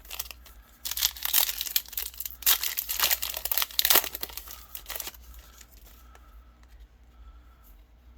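Foil trading-card booster pack being torn open and crinkled, a dense run of crackling for a few seconds, then fading to faint rustling.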